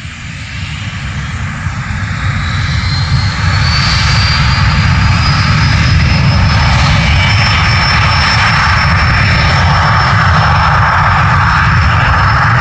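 Twin Garrett TFE731 turbofans of a Cessna 650 Citation III business jet running loud, with a low rumble and a turbine whine that rises in pitch and volume over the first four seconds or so, then holds steady and loud.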